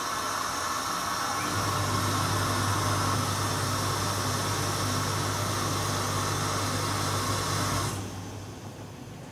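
Form-finishing dummy (ironing mannequin) blowing air into a silk áo dài: a steady rushing hiss, with a low motor hum joining after about a second and a half. The blowing drops away sharply about eight seconds in.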